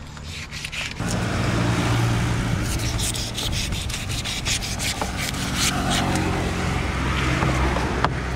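Rasping, scraping strokes of a knife working through a large catla carp on a wooden chopping board. Over them is the steady low hum of a motor vehicle engine, which comes in suddenly about a second in.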